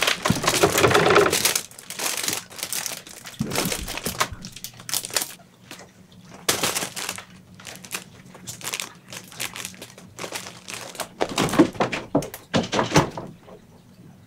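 Cats moving about and playing, with bursts of crinkling and rustling and a few thumps, loudest near the start and again near the end.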